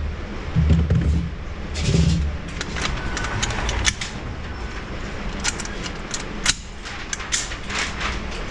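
Gunfire at a shooting range: several sharp shots and clicks from about two seconds in, after a couple of heavy low thumps at the start.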